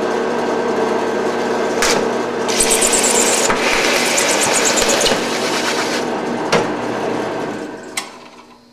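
Drill press running as its bit cuts a hole through the top of a clear plastic storage container, with a high scraping hiss from the cut for a couple of seconds about two and a half seconds in and a few short knocks. Near the end the motor is switched off and winds down.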